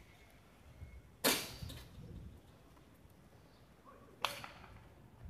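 Two sharp cracks of a jai alai ball (pelota) hurled from a cesta and striking the fronton wall, about three seconds apart, the first the louder, each followed by a short echo.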